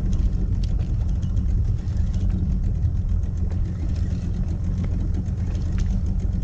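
Small outboard motor running steadily at low trolling speed, a continuous low rumble, with faint scattered clicks over it.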